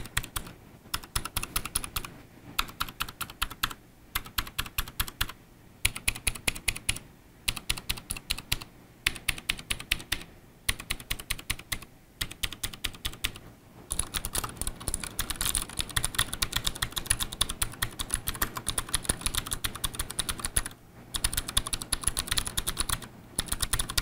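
Typing on a Leopold FC750R PD tenkeyless mechanical keyboard with Cherry MX Blue clicky switches and thick PBT keycaps. Short runs of keystrokes with brief pauses give way, about halfway through, to fast continuous typing.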